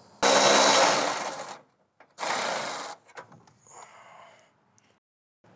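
Cordless electric ratchet running, backing out a bolt: one burst of about a second and a half, then a shorter one of under a second, followed by a fainter short sound.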